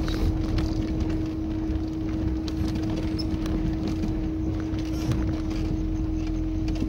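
Tofaş Kartal driving on a rough dirt track, heard from inside the cabin: the engine runs at a steady pitch over a continuous low rumble from the tyres on gravel. Many small rattles and knocks come from the body and the loose stones.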